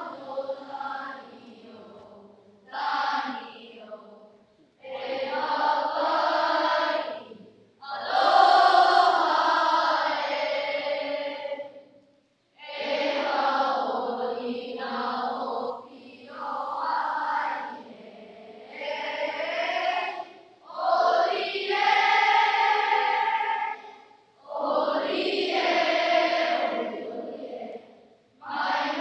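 A group of children singing together as a choir, in phrases of a few seconds each with short silent gaps between them.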